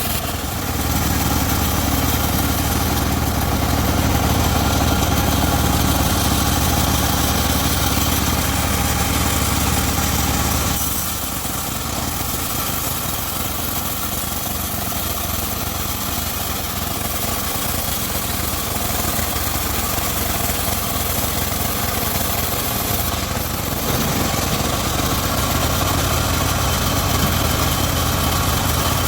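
Engine of a homemade circular-saw rig running steadily. The sound is heavier for about the first ten seconds, lighter through the middle, and heavier again about two-thirds of the way through.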